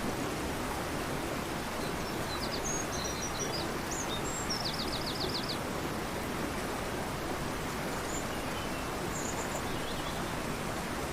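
Steady rush of a torrential river, with a small bird singing above it about two seconds in: a few high chirps, then a quick run of about eight rapid notes. Softer high calls come again near the end.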